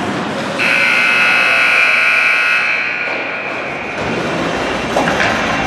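Ice rink scoreboard buzzer sounding once: a harsh, steady tone that starts about half a second in, holds for about two seconds, then fades out.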